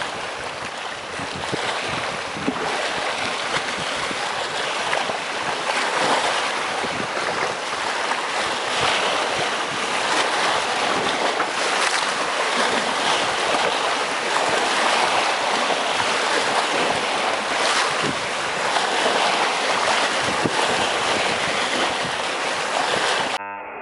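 Sea waves washing and splashing against breakwater rocks: a continuous rushing surf that swells and eases, with short splashes. It cuts off just before the end.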